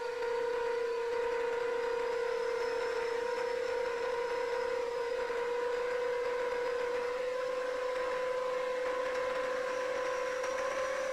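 Brushless motors and propellers of a 7-inch FPV quadcopter (Emax Eco 2807 1300kv motors on 6S) whining steadily in forward flight, the pitch creeping up slightly.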